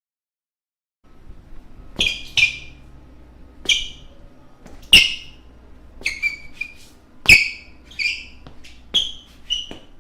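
Basketball shoes squeaking on a hard court floor: about a dozen short, sharp squeaks at an uneven pace. They begin about two seconds in, after a second of silence, and the loudest come about five and seven seconds in.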